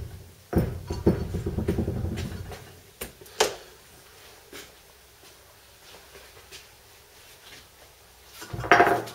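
A VW T25 front brake disc and hub set down on a steel-topped workbench, clattering rapidly for about two seconds as it settles, then two sharp knocks. Near the end there is a louder clunk and scrape of metal as the disc is handled again.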